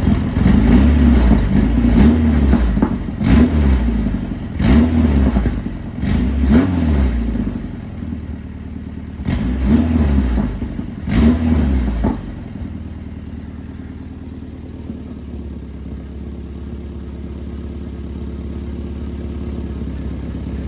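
Rebuilt Nissan 240SX KA24DE inline-four, running on an engine hoist, revved in about seven quick throttle blips that rise and fall, then settling back to a steady idle. It carries a small ticking, which the owner puts down to the timing chain.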